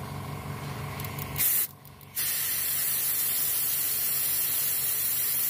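Fuel injector being flushed with cleaner, pulsed open on a power lead: a brief loud burst, then a steady spraying hiss from about two seconds in. A low steady hum is heard before the spray starts.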